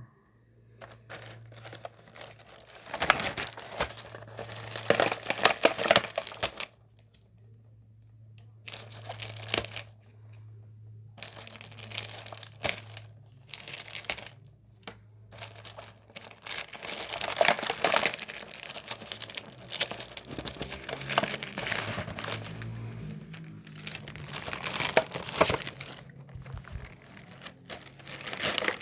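Packaging being handled and opened: crinkling and tearing in irregular bursts, with short pauses. A low steady hum lies underneath for about the first half.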